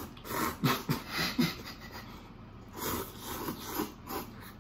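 Two people slurping cup-ramen noodles: a quick string of slurps in the first second and a half, then another run about three seconds in.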